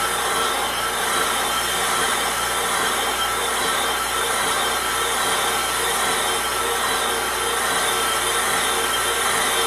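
Atlas brake lathe running with its tool bits cutting across a cast-iron brake rotor: a steady scraping hiss over a motor whine with several held tones.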